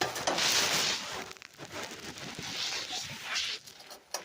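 Rustling and scraping with small irregular clicks, the sound of small parts and screws being handled and sorted by hand, loudest in the first second.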